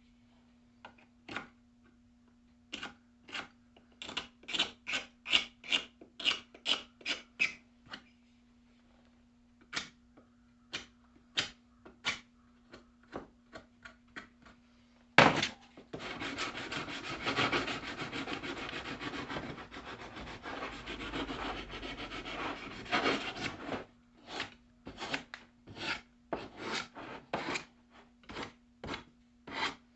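Wood being hand-sanded or rasped: separate scraping strokes, a run of two to three a second early on and more spaced-out strokes later. About halfway through there is a sharp knock, followed by some eight seconds of continuous scraping. A steady low hum lies under the stroke sections and drops out during the continuous scraping.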